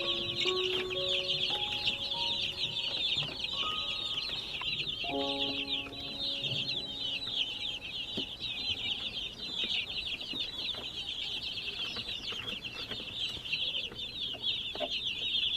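A large brood of baby chicks, around a hundred, peeping continuously in a dense overlapping chorus of short, high, falling peeps. A few held musical notes sound underneath for the first six seconds or so.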